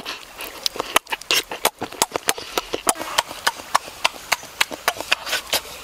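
Wet lip-smacking while chewing soft durian flesh: an irregular run of sharp clicks, several a second.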